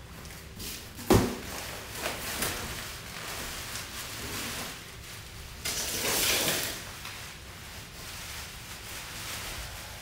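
Cardboard box handled during unboxing, with a sharp knock about a second in, then a bubble-wrapped car spoiler lifted out, the plastic wrap crinkling and rustling, loudest around six seconds in.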